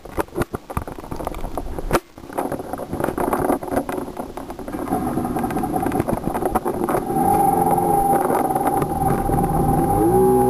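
Jet ski engine heard through a waterproof camera box on the craft. Irregular knocks and splashes come first, with a sharp knock about two seconds in. Then the engine speeds up over the next few seconds and settles into a steady, louder drone as the craft runs across choppy water.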